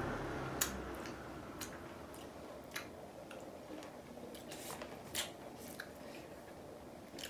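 Faint eating sounds: chewing and mouth noises with scattered small clicks at irregular moments.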